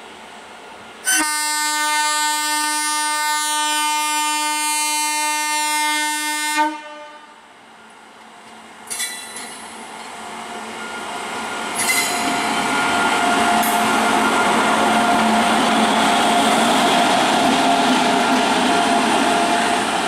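WAP-7 electric locomotive's horn sounding one long blast of about five and a half seconds, which cuts off sharply. Then comes the rising rumble of the express passing close at speed, wheels on rail, with a steady high note running over it.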